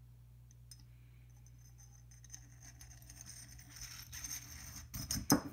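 AAC Element 2 suppressor tube sliding down over its stacked baffles, metal rubbing on metal: a faint scraping that builds through the middle with a few light clicks, then a short cluster of louder knocks near the end.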